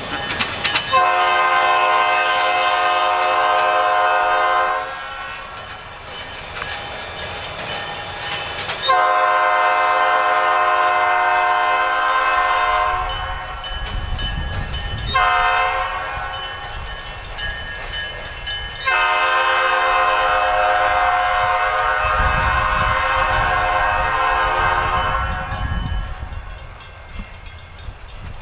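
Diesel freight locomotive air horn on a lead EMD SD40-2, heard from behind the departing train, sounding four blasts with the third shorter, in the pattern blown for a road crossing. A low rumble of the train rolling on the rails sits under the horn.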